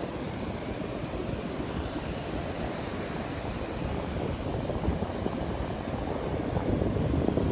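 Gulf of Mexico surf breaking and washing up the beach in a steady rush that grows louder toward the end, with wind buffeting the microphone.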